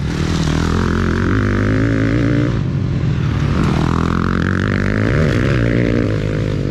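Motocross bike engines revving as the bikes race past on a dirt track, the engine note rising and falling. The sound changes abruptly about two and a half seconds in.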